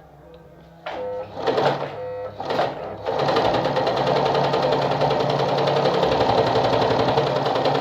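Sartina E-100 electric sewing machine sewing a straight stitch. It gives a few short stop-start bursts in the first couple of seconds, then runs steadily at speed from about three seconds in.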